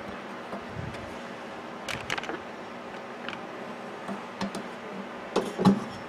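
Light clicks and metallic knocks of hands working wires and parts inside an opened microwave oven's sheet-metal case: a few about two seconds in and the loudest cluster near the end.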